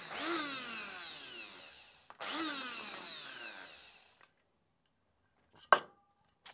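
Electric coffee grinder blending fly-tying dubbing fibres, pulsed twice: the motor spins up, runs for about two seconds and winds down in falling pitch each time. After a pause, a single sharp clack near the end as the grinder's plastic lid comes off.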